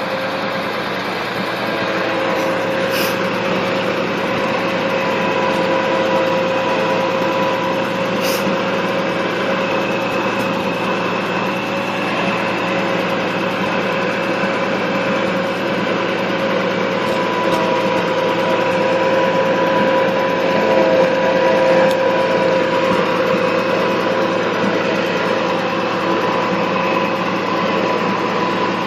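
An engine running steadily at a constant speed, a little louder about twenty seconds in.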